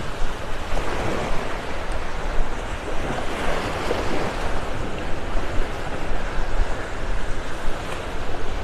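Small waves breaking and washing up on a sandy beach, a steady rush of surf, with wind rumbling on the phone's microphone.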